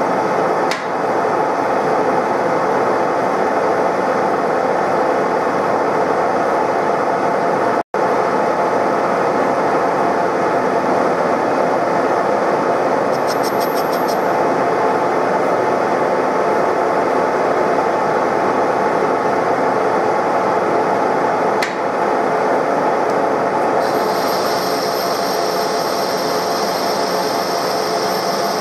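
TOS SN63B lathe running under power, its gearbox giving a steady whine, while a carbide insert takes a turning cut on a steel hub. The sound cuts out for an instant about eight seconds in, and a higher hiss from the cut joins near the end as a long chip curls off.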